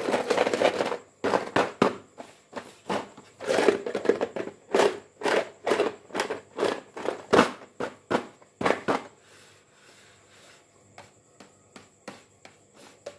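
Clear plastic jar of coloured pieces being handled and shaken: quick clusters of clattering knocks and plastic crackles for about nine seconds, then only a few faint taps.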